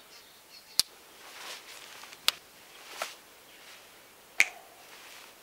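Four sharp finger snaps spaced roughly a second apart, the third softer, with faint rustling between them.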